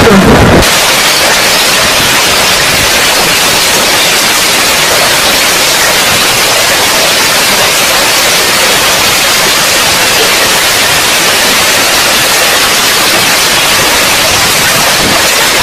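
Heavy hail pelting grass and pavement: a loud, dense, steady hiss.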